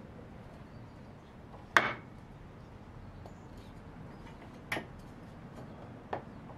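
Three hammer taps on a wooden block held against a glued mortise-and-tenon joint, knocking at it to free the tenon. The first, about two seconds in, is the loudest, and two weaker taps follow about three and four and a half seconds later, over a faint low hum.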